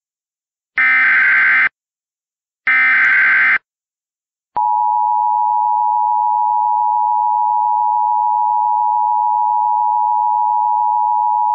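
Emergency Alert System header: two bursts of SAME digital data, each about a second long with a second's gap, followed about four and a half seconds in by a steady single attention tone that holds on. The tones announce a flash flood warning.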